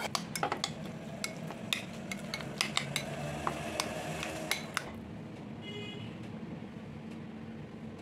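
Metal spoon clinking and scraping against a steel pan and a glass bowl as a chunky paneer-and-vegetable filling is scraped out and stirred into a sauce. The clinks come quickly and stop about five seconds in, leaving a faint steady hum.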